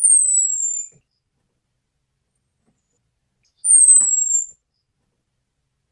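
Orange-headed thrush giving a thin, very high whistled call that slides slightly down in pitch, twice, each lasting just under a second, about three and a half seconds apart.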